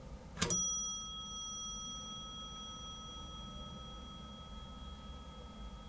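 Elevator hall-lantern gong: a single metallic ding about half a second in, struck sharply and ringing on while it slowly fades, signalling the down-direction arrival.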